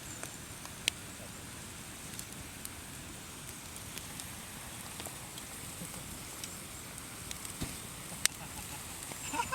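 Wood fire crackling steadily, with scattered sharp pops, two of them standing out about a second in and near the end.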